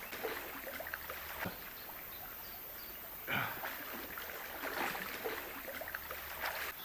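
Shallow, cold river water running steadily, with a few short louder surges of water sound.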